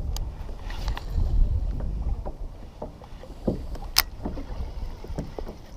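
Small clicks and ticks from a baitcasting reel being handled in a kayak, over a low rumble of wind on the microphone. One sharp click about four seconds in.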